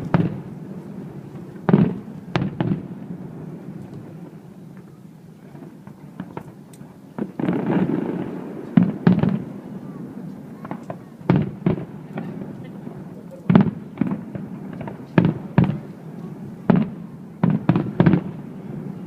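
Aerial fireworks display: a run of irregular sharp bangs, some in quick pairs or triplets, with a longer crackling spell about seven seconds in.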